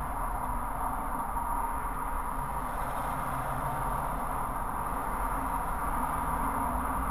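Steady drone of vehicle noise heard from inside a stopped car through a dashcam's microphone: the car's own running engine and motorway traffic passing slowly alongside.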